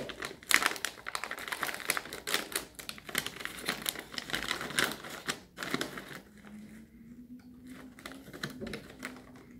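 Shiny plastic snack pouch being opened by hand: rapid crinkling and crackling of the packaging for about six seconds, then it goes quieter.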